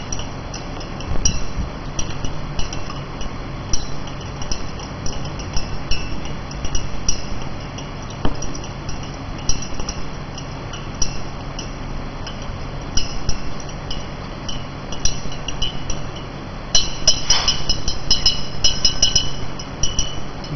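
A white spatula clinking against the sides of a glass beaker as it stirs dark wastewater, mixing in a water-treatment powder: single clinks every second or so, then a quick flurry of clinks near the end.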